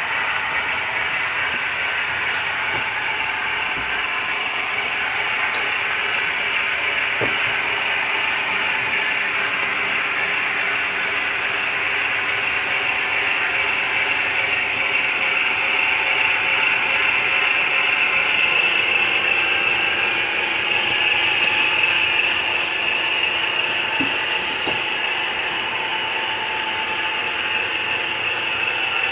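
HO scale model train's electric motor and gears whirring steadily as it runs on the layout, getting a little louder about two-thirds of the way through and then easing off.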